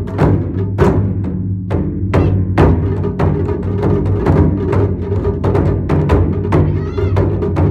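Taiko ensemble drumming: two large nagado-daiko on tall stands struck with bachi, together with a row of smaller drums, in a steady stream of strikes. The big drums' deep ring carries on between the hits.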